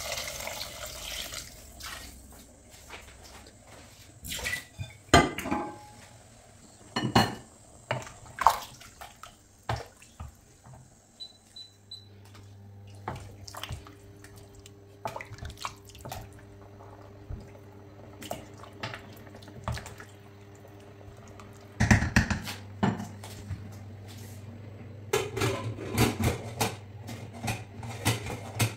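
Water poured from a bowl into a stainless steel pressure cooker of stew, followed by a wooden spoon stirring and knocking against the pot, with scattered sharp clatters of cookware and a burst of clicks near the end as the pressure-cooker lid goes on. A steady low hum comes in about halfway through.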